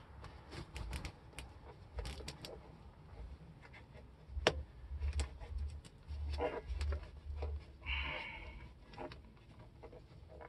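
Gloved hands working the snow cab's fabric and snap fastener behind the tractor frame. There are scattered small clicks and rustles, one sharper click about four and a half seconds in, and a short rustle near eight seconds.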